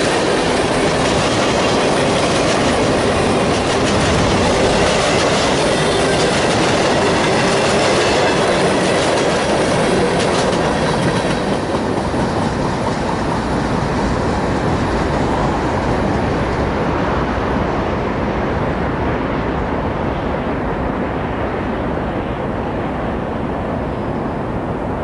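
Norfolk Southern mixed freight train passing close by, its cars' wheels rolling and clattering over the rail. After about ten seconds the sound grows duller and slowly fainter as the end of the train goes by and moves away.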